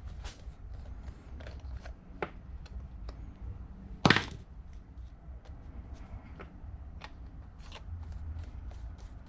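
Light clicks and taps of small parts and tools being handled on a workbench, with one louder knock about four seconds in, over a low steady hum.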